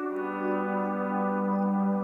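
Background music with long held notes; the chord shifts to a lower sustained note just after the start.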